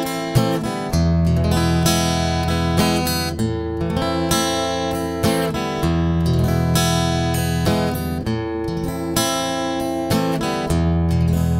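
Background music: an acoustic guitar strumming chords in a quick, steady rhythm.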